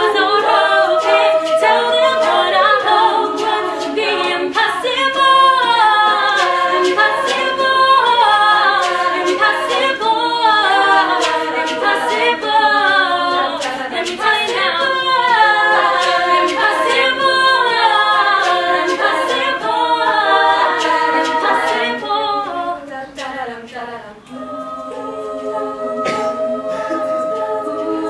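Women's a cappella group singing in harmony, a lead voice over several backing voices, with no instruments. Repeated falling vocal runs fill most of the stretch; the sound dips briefly, then the group settles into a held chord near the end.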